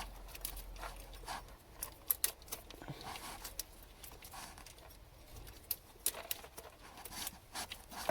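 Hands rummaging through a car's wiring loom: irregular clicks, taps and rustles of wire and plastic being handled, with a few sharper clicks about two seconds in and again around six seconds.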